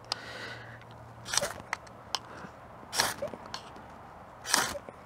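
A ferrocerium rod (fire steel) scraped with a striker three times, about a second and a half apart, each stroke a short hard scrape, with small clicks between strokes. The sparks are not yet lighting the fatwood shavings.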